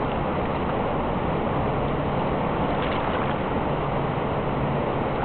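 River whitewater rapids rushing: a steady, unbroken noise of churning water.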